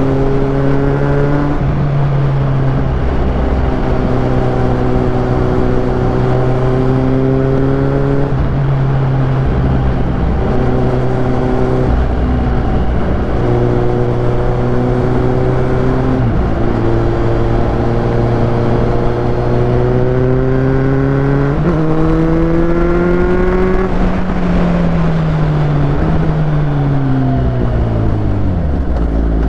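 Kawasaki Z800's inline-four engine running as the motorcycle rides along. The engine note holds steady with short breaks every few seconds. Over the last few seconds the note falls steadily as the bike slows.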